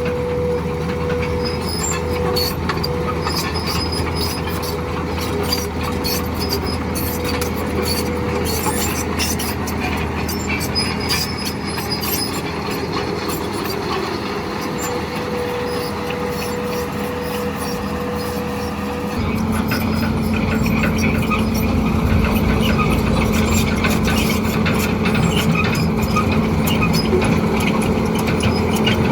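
Heavy diesel machinery running, with a steady high squeal over the engine drone and frequent metallic rattles and clanks. About two-thirds of the way through the engine note drops and the sound gets louder.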